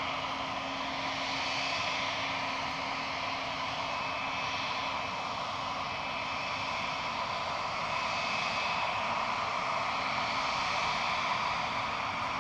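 Airbus A220-100's Pratt & Whitney PW1500G geared turbofans running at taxi power as the jet rolls past: a steady engine whine, with a few high held tones over a lower hum.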